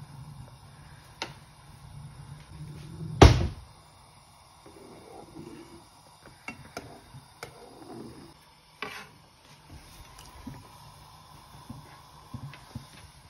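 Metal spoon and slotted metal spatula knocking and clinking against a saucepan of boiling water, with one sharp clank about three seconds in and scattered lighter taps after it.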